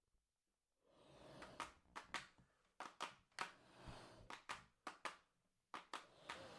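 Very faint, irregular taps and clicks, a dozen or more over a few seconds, over a soft hiss: the hushed percussive opening of a song.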